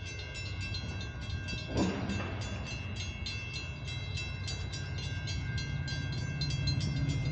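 Grade-crossing warning bell ringing rapidly and evenly over the low, steady rumble of an approaching Metra diesel train, which grows a little louder. There is a single thump about two seconds in.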